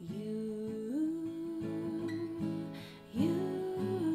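Acoustic guitar playing, with a woman's voice holding long wordless notes that slide up in pitch, about a second in and again near the end.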